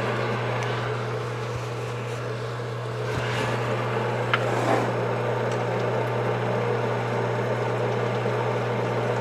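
Sunnen honing machine running steadily with a low motor hum, its honing oil flowing and no cylinder on the mandrel. A couple of light metal ticks come from the part and the bore gauge being handled.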